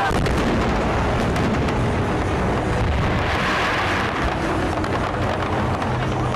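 Aerial firework shells bursting one after another, running together into a continuous rumble of booms. A brighter crackling spell comes about three to four seconds in.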